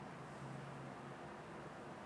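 Faint steady hiss with a low hum: background room tone picked up by the microphone.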